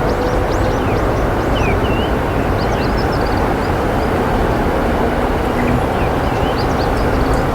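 Small birds chirping in short, quick notes over a steady, loud low rumble of outdoor background noise.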